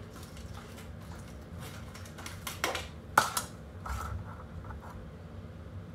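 Handling noises from picking up a live lobster out of a steel bowl: a few short, sharp clicks and knocks of shell against metal, the loudest a little past halfway.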